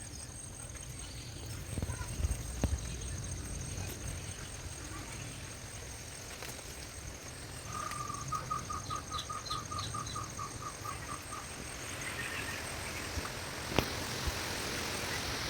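Outdoor ambience of insects trilling steadily at a high pitch. Partway through, a bird gives a run of about fourteen quick repeated notes, roughly four a second. Over the last few seconds a rushing hiss of approaching rain builds.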